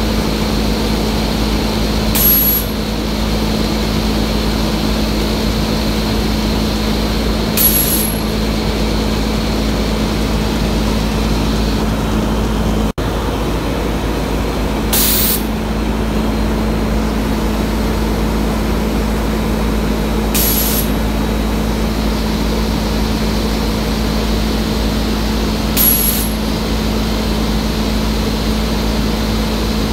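Automatic powder-coating booth running: a steady hum and rush of air from the extraction and spray guns. Five short, sharp hisses of compressed air cut in, about five seconds apart.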